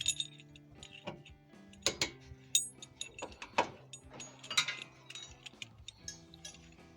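Background music with a series of sharp metallic clicks and clinks from hand tools and metal parts being handled, about five of them louder than the rest.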